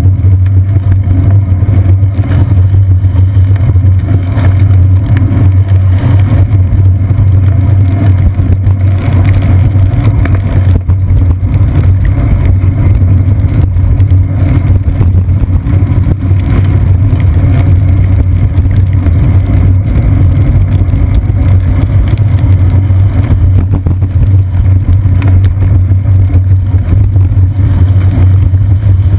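Loud, steady low rumble picked up by a seat-post-mounted camera on a moving bicycle: road vibration and wind on the camera housing as the bike rides over wet pavement, with city traffic mixed in.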